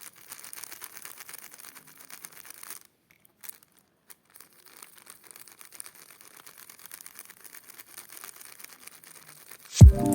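Packaging being unwrapped: faint, irregular crinkling and tearing of wrapping, with short pauses. Near the end there is a sudden loud thump as music cuts in.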